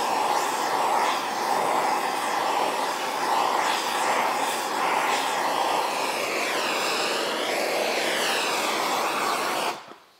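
Hand-held gas torch burning with a steady rushing hiss whose tone shifts as the flame is moved over a plastic ski skin to soften it. The flame is shut off suddenly near the end.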